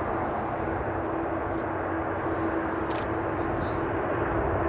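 Jet engines of an Air France Boeing 777-300ER, its GE90-115B turbofans at take-off power, heard as a steady rumbling noise with a steady hum running through it.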